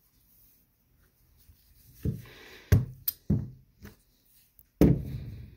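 Metal air-brake valve parts knocking against a stainless steel workbench several times over the last three seconds. Twice a cordless drill/driver runs briefly to back out the valve's cover screws.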